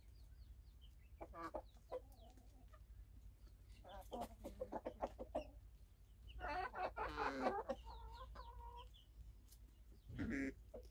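Baladi (local-breed) chickens clucking in several short runs of calls, the loudest a little past the middle.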